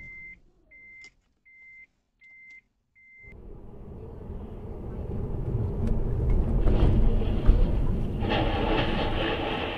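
Five short, evenly spaced high electronic beeps, then the noise of a car on the move heard inside its cabin, growing louder. A single knock comes about halfway through, and a harsher rushing noise near the end as the car comes from 66 km/h to a stop.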